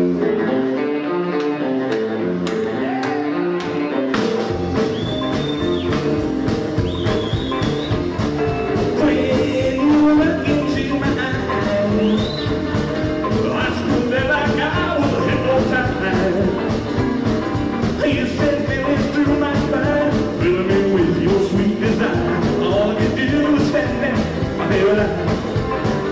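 Live rock and roll band playing: an electric guitar starts with no bass under it, then drums and bass come in about four seconds in and the full band plays at a steady beat, with a man singing at the microphone.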